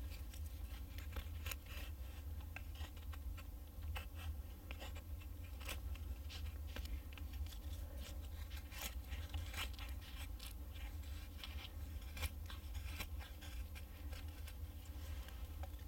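Knife blade shaving a wooden stick, a run of short, irregular scraping strokes as thin curls of wood come off. A low steady rumble lies underneath.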